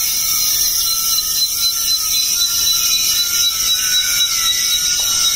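Steady high-pitched buzzing insect chorus, fading in at the start and then holding even, with faint thin tones beneath it.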